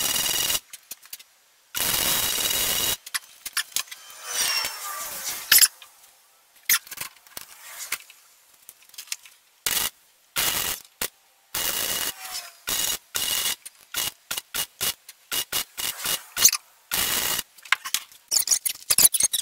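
Stick (arc) welding with a coated electrode: the arc crackles and sputters in on-off bursts as it is struck, run briefly and broken. There are a few longer runs early on, then many short bursts close together.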